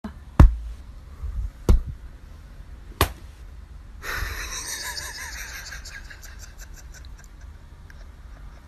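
Room sound with three sharp clicks in the first three seconds, then a soft steady hiss from about four seconds in.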